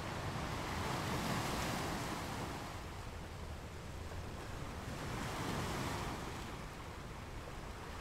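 Sea water washing against the hull of a boat at sea, swelling twice, with wind on the microphone and a low steady rumble underneath.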